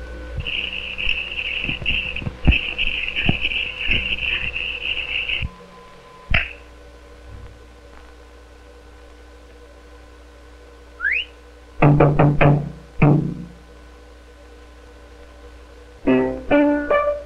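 Early optical cartoon soundtrack over a steady hum: a high, shrill warbling tone for the first five seconds, then a quieter stretch with a few clicks and a short rising whistle-like glide. Near the end comes a run of short plinked piano notes.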